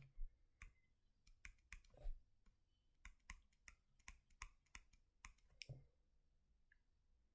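Faint, irregular clicking, roughly three sharp clicks a second, stopping about six seconds in.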